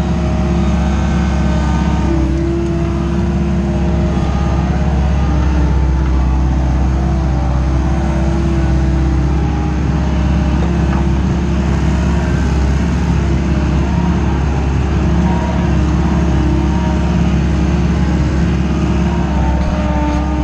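Wacker Neuson 901s skid steer loader's 50 kW diesel engine running steadily as the machine drives and works. A steady whining tone sits over the engine note. Heard close up from inside the operator's cab.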